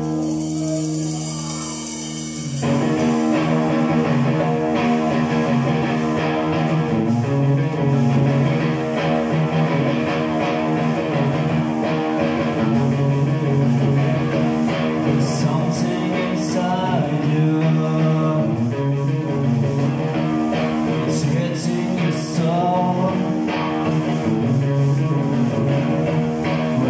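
Live rock band of electric guitar and drum kit playing. A held guitar chord rings alone for about the first two and a half seconds, then the full band comes in and plays on.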